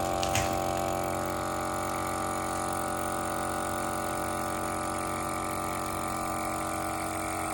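Countertop vacuum sealer's pump motor running with a steady hum, evacuating the bag; a light click sounds about half a second in.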